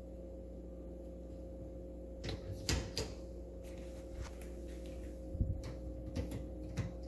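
Miele dishwasher rack being handled and adjusted: a scattering of light clicks and knocks from about two seconds in, over a steady low hum.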